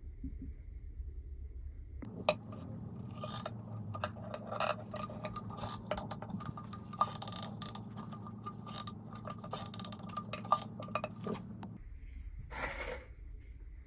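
Hard objects clinking and scraping over a steady low hum, which starts about two seconds in and stops near the end.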